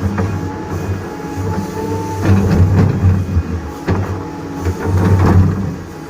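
Doosan DX225LCA crawler excavator working, its diesel engine running with the load swelling and easing every second or two. Sharp metallic clanks and knocks come in among the engine sound.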